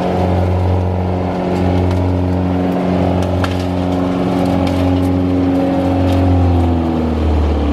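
GreenMech Safe-Track 19-28 wood chipper's 48 hp four-cylinder Kubota diesel engine running steadily, its pitch dropping slightly near the end.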